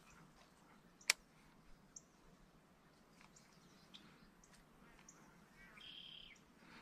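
Faint outdoor quiet with scattered short bird chirps, including a brief held high call near the end. A single sharp click about a second in.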